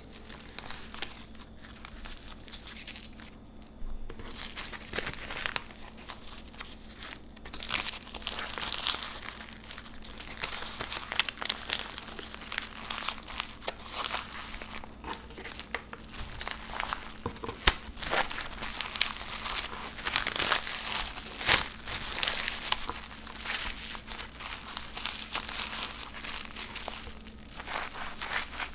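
Plastic cling film crinkling and crackling as it is folded and pressed around a nori-wrapped rice sandwich: many quick, irregular crackles starting a few seconds in, busiest in the second half.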